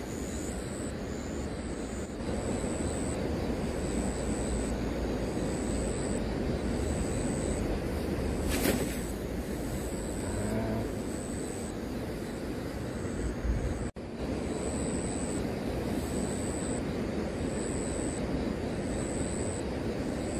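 Steady outdoor background rumble, with a faint high-pitched chirp repeating a little more than once a second and a brief sharp click about eight seconds in.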